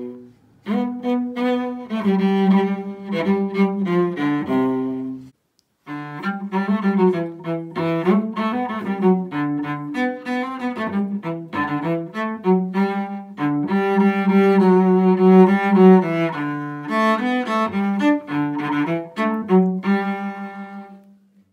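Solo cello bowing a Christmas carol melody in sustained notes. Playing stops about five seconds in for a moment of silence, then starts again and dies away near the end.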